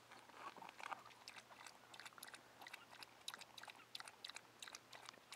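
Small dog lapping water from a metal bowl: faint, quick wet clicks and ticks, several a second, in an irregular run.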